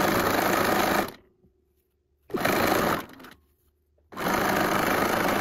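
Bernina sewing machine zigzag-stitching lace onto fabric, running in spurts: it stops about a second in, runs briefly in the middle, then starts up again near the end.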